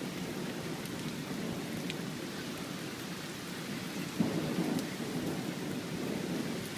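Heavy rain falling steadily in a thunderstorm, with a sudden loud crack about four seconds in followed by a louder rumble of thunder.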